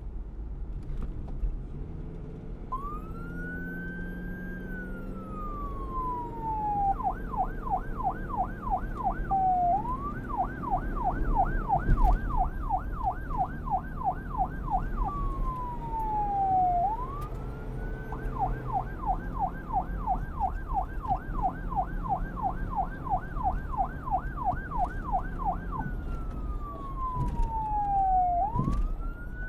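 Electronic police siren, starting a few seconds in and alternating between a slow wail that rises and falls and a fast yelp of about four cycles a second. A low rumble runs underneath, and there is a single sharp knock about twelve seconds in.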